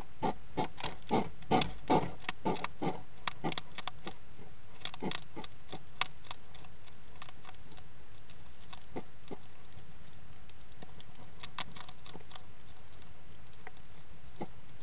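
Hedgehog chewing dry food: a quick run of crunches in the first three seconds, then scattered crunches.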